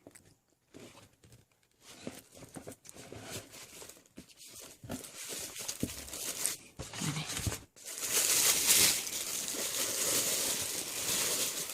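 Paper crinkling and tearing as packing paper is handled and unwrapped: scattered quiet rustles at first, then louder continuous rustling from about two-thirds of the way in.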